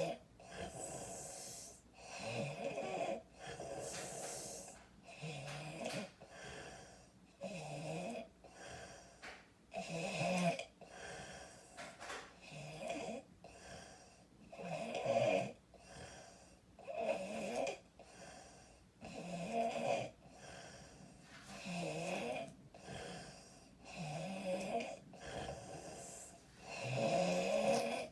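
Loud open-mouthed snoring of a person who is sick: a rough snore with nearly every breath, coming every second or two, its pitch wavering within each snore.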